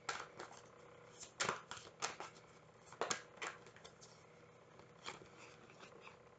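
A tarot deck being shuffled by hand: irregular snaps and slaps of the cards, the sharpest about a second and a half in and around three seconds.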